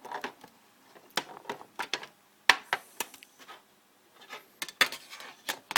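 Irregular clicks and taps from Zippo lighters and their packaging being handled, the loudest about halfway through.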